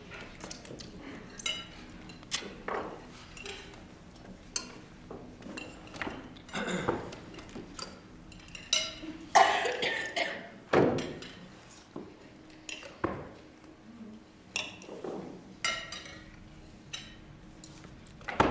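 Tableware sounds at a dinner table: forks and knives clinking on plates and glasses being set down, in irregular sharp clinks. A few longer, louder sounds come about halfway through, over a faint steady hum.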